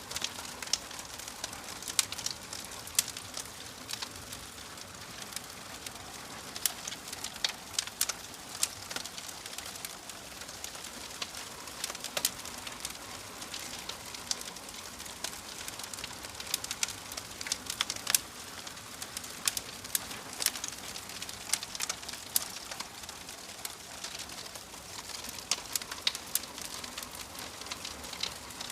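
Wood fire crackling: a steady hiss broken by frequent sharp, irregular pops and snaps.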